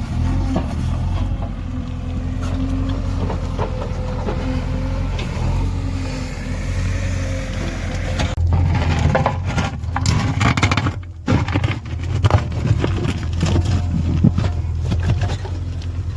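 JCB 3DX backhoe loader's diesel engine running steadily. From about halfway through, a run of knocks and scraping sounds is heard over it.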